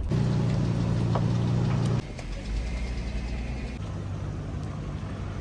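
Lexus LX470's V8 engine running at low speed as it crawls over a trail, louder for about two seconds and then dropping suddenly to a quieter steady running.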